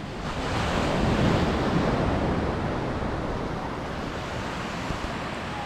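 Wind gusting across the microphone, a rushing noise that swells about a second in and then eases to a steady level.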